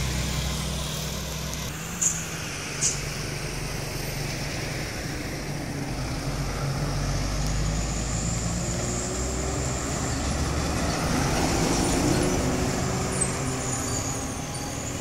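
Heavy diesel trucks, among them a Hino box truck, running through a highway bend: steady low engine sound, with two short sharp high sounds about two seconds in, and growing louder toward the middle as trucks pass close by.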